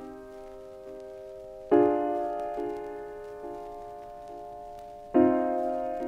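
Background music: slow piano chords, a new one struck about every three and a half seconds and left to ring and fade, with a few softer notes between.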